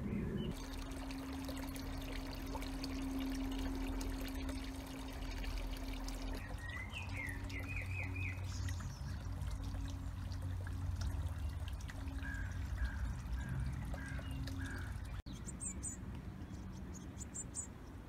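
Water trickling and pouring over a steady low hum. Short, high chirping calls come in and out from about six seconds in. After a break near the end, rapid high-pitched chirps repeat.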